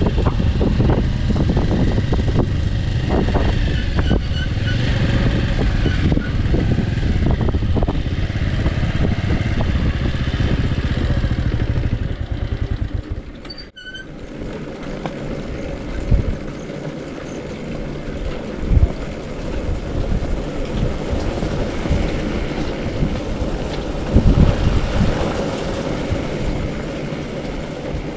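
Bajaj Avenger 160 Street motorcycle running on the move. About halfway through the sound drops off sharply, then carries on softer with a few short thumps.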